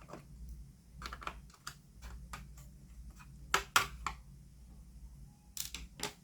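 Irregular small clicks and taps of a screwdriver and tiny screws against a laptop's plastic case, as screws are taken out of the bottom panel.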